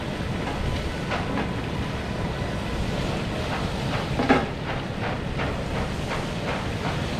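Steady roar of propane turkey-fryer burners, with a run of light knocks at the pot, the loudest about four seconds in.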